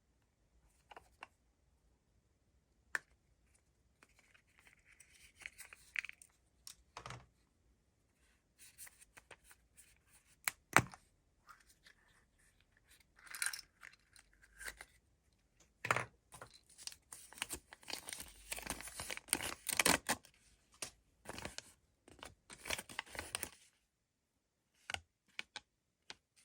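Foil wrapper of a chocolate surprise egg being torn and crinkled open by hand, in short bursts with scattered clicks and taps between quiet gaps; the crinkling is thickest about two-thirds of the way in.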